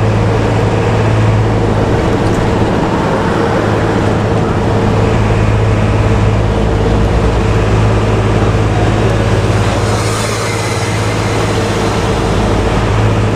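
Intercity bus driving along a motorway, heard from inside the cabin: a steady low engine drone mixed with road and tyre noise, with a brief rise in hiss about ten seconds in.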